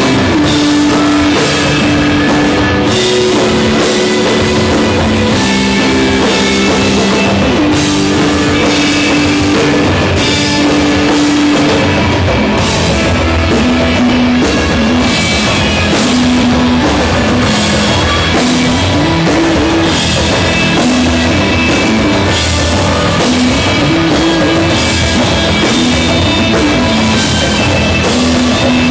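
Stoner rock band playing live: loud, steady instrumental rock with drum kit and guitar, held low guitar and bass notes changing every second or two over a regular drum beat, no vocals.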